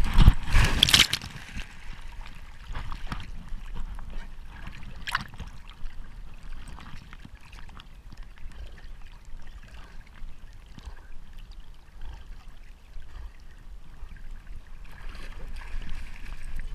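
Lake water splashing and sloshing right at a camera strapped to a swimming labrador: a loud splash in the first second or so as the dog goes in, then steady lapping and gurgling as it swims with a stick in its mouth.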